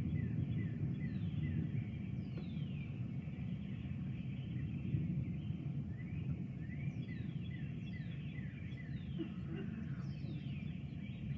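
Songbirds calling: series of short whistled notes, most sliding down in pitch, repeated in quick runs, over a steady low rumble.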